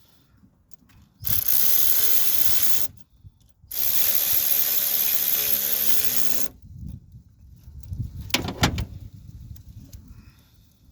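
Cordless power tool with a socket run in two spells, about one and a half and nearly three seconds long, tightening a battery cable clamp nut; a few sharp metal clicks follow near the end.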